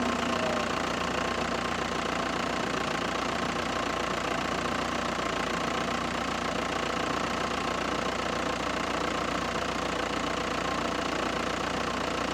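Audi A6 (4F) 2.0 TDI Pumpe-Düse four-cylinder diesel engine running steadily at an even speed.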